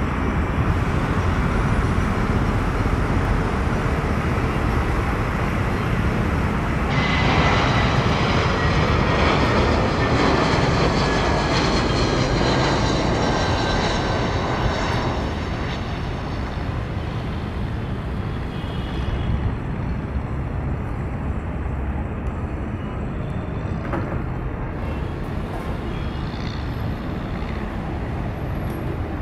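Jet engines of Airbus A320-family airliners landing: a steady rumble, with a thin high whine that falls slowly in pitch for several seconds about a quarter of the way in. The sound changes abruptly a few times.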